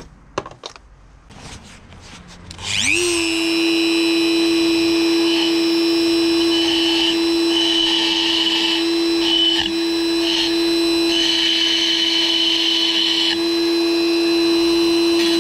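Dremel rotary tool switched on a little under three seconds in, spinning up to a steady high whine. Its bit then grinds the aluminium moped crankcase in short, uneven passes, a rasping that comes and goes over the whine. There are a few faint handling clicks before it starts.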